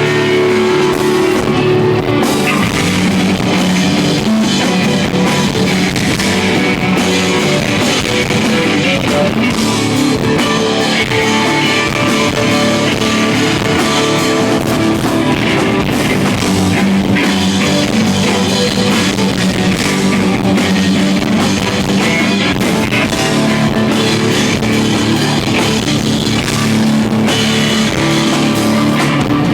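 Live rock band playing an instrumental passage: electric guitars and a drum kit, loud and continuous.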